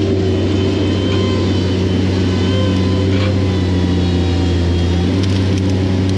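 Engine of a mini skid steer running steadily with a deep, even hum.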